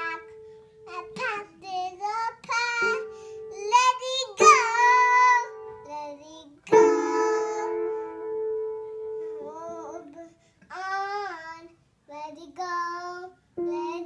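A toddler singing in short, wavering phrases while playing the piano. She presses single notes and chords, and a chord struck about seven seconds in rings on for about three seconds.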